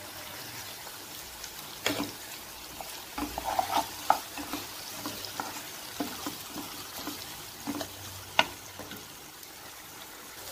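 Wooden spoon stirring chopped tomatoes and onions frying in a pan: a steady sizzle with irregular knocks and scrapes of the spoon against the pan, the sharpest about four and eight seconds in.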